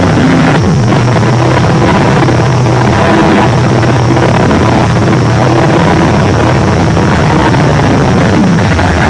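A loud, steady rumbling drone with a dense hiss over it, unchanging in level, like a large engine or rotor.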